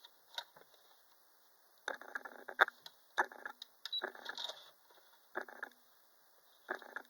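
Computerized sewing machine run in about five short spurts, each a brief whirring clatter lasting well under a second, with a sharp click among them. The fabric is not feeding because the machine's feed dogs are in the lowered position.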